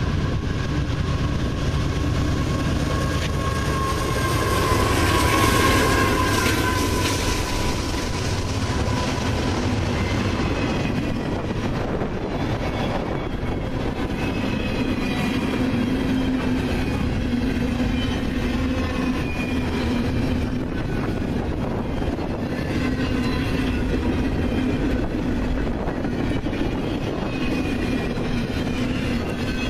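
Canadian Pacific double-stack intermodal freight train passing at speed. The lead diesel locomotives go by about five seconds in, loudest there, with a whine that drops in pitch as they pass, then a steady rumble and clatter of the container cars follows, with faint high wheel squeal.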